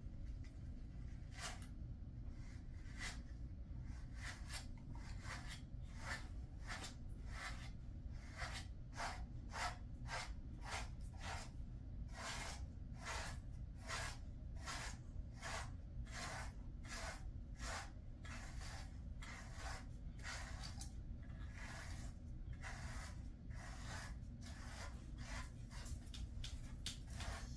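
Slicker brush raking through a Jindo dog's thick coat in repeated short strokes, about one to two a second, a little quicker in the middle, over a steady low hum.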